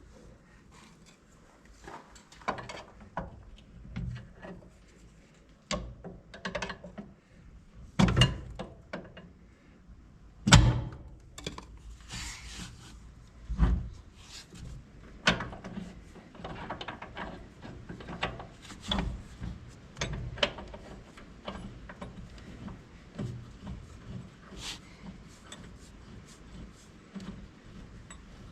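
Irregular knocks, clunks and rattles of hand tools and metal parts being handled during wheel-bearing work on a corn planter, the loudest knock about ten seconds in.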